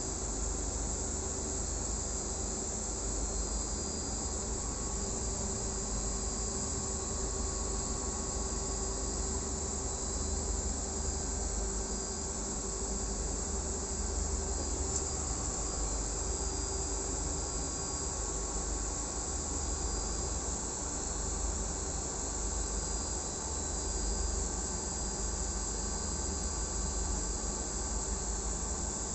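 Sawmill machinery running steadily: a constant hum with a low rumble and a high, even hiss.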